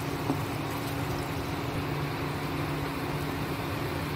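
Steady hum and hiss of an induction cooktop running with its cooling fan, under hot frying oil, with one light tap of a steel spatula about a third of a second in.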